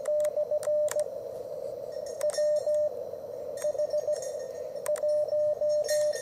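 Morse code (CW) from an Elecraft KX3 transceiver: a single tone of about 600 Hz keyed on and off in dits and dahs over receiver hiss, the hiss held to a narrow band around the tone by the radio's CW filter. Occasional sharp clicks are heard between the characters.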